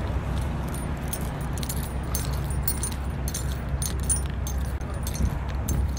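Keys jingling with each step of someone walking across asphalt: light, irregular metallic chinks over a steady low rumble.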